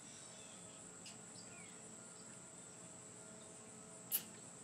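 Near-quiet background with a faint steady high-pitched tone, and a single sharp click about four seconds in as hands work on the RC truck's tuned exhaust pipe.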